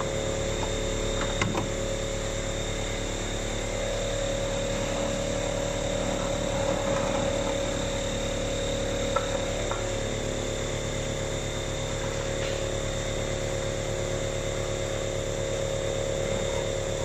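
Vacuum cleaner running steadily with a constant whine, sucking dust out of the empty air filter housing.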